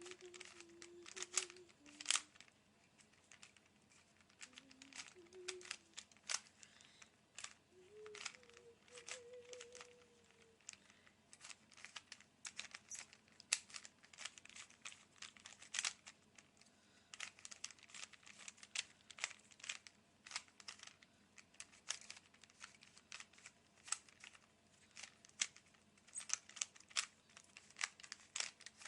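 Plastic Rubik's Cube being turned quickly by hand, its layers clicking and clacking in fast, irregular runs as it is solved.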